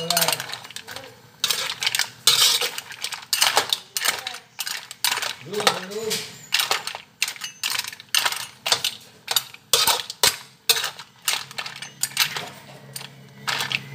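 Utensils clinking and knocking against dishes, a steady run of sharp metallic clicks about once or twice a second.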